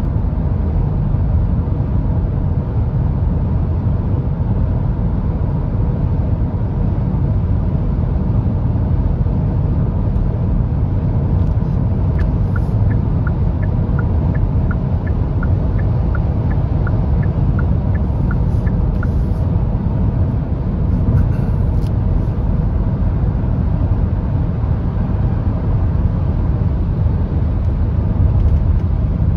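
Steady road noise inside the cabin of a Hyundai Tucson full hybrid cruising at motorway speed, about 130 km/h, mostly a low rumble. Midway, a run of light regular ticks, about two a second, lasts several seconds.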